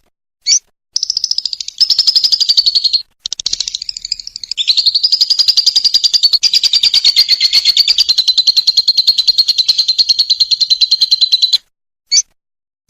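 Lovebird giving its long 'ngekek' song: a rapid, high chattering trill lasting about ten seconds with a brief break near the start, between single sharp chirps at the beginning and end.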